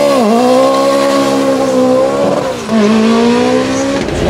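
Lancia Delta S4 hillclimb car's engine revving high, its pitch dipping and climbing back, then holding. About two and a half seconds in it drops briefly before rising again and holding.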